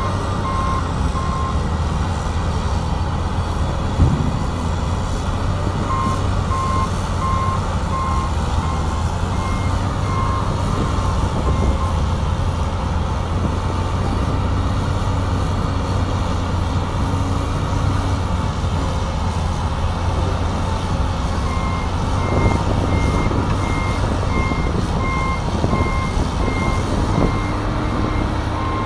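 Wheel loader with a Larue D50 snow blower and a dump truck running steadily under load, a heavy low drone. A reversing alarm beeps in steady, evenly spaced spells: near the start, from about six to twelve seconds in, and from about twenty-two seconds to the end. A single knock about four seconds in.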